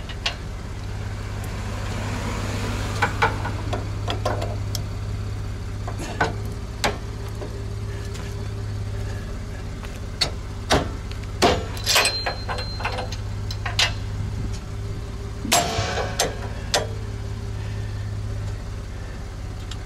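Scattered metal clanks and clicks as a weight-distribution hitch's steel spring bar is levered up with its lift handle and set onto the trailer-frame bracket, one strike ringing briefly and a longer scraping rattle about three-quarters through. A steady low hum runs underneath.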